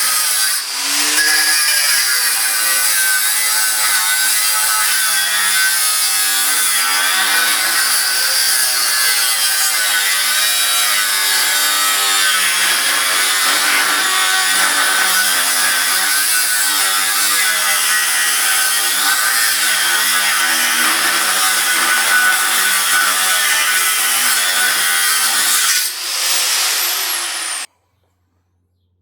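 A power tool working steel chassis rail, its motor pitch wavering up and down as the load changes. Near the end it winds down and stops.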